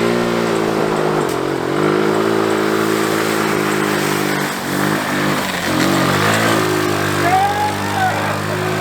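Small vehicle engine revving up and holding high revs, easing off and wavering about halfway through, then picking back up.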